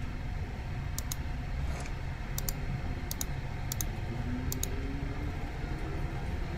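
Sharp computer clicks in quick pairs, five pairs over a few seconds, as pages of listings are clicked through, over a steady low room hum.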